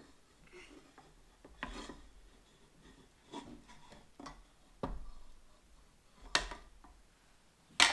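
A spatula scraping cubed butter off a wooden cutting board into a steel mixer bowl, with the board knocking against the bowl: several short scrapes and knocks, the loudest near the end.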